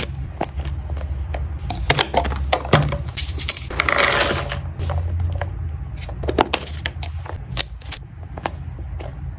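Freeze-dried duck cat-treat cubes poured from a paper pouch, clattering into a clear plastic storage box for a second or so near the middle, amid crinkling of the packaging and clicks of the plastic box being handled. A low steady hum runs underneath.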